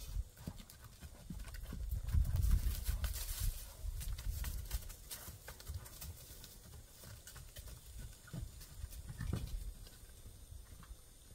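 Hooves of a Fjord horse and a donkey moving about at play on dirt and wood chips: a scatter of dull thuds. A low rumble swells about two seconds in and fades by about four seconds.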